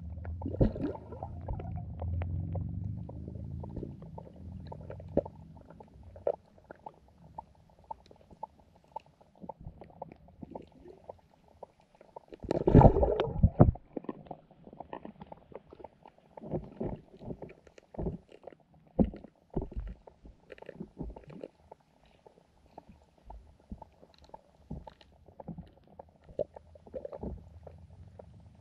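Muffled underwater sound from a camera submerged in a carp and goldfish pond. There is low rumbling and gurgling of water, with scattered clicks and knocks, and a louder burst of water noise about 13 seconds in.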